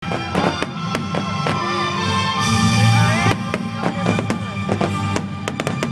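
Aerial fireworks bursting, a string of sharp bangs and crackles, over music with steady held notes; a quick flurry of bangs near the end.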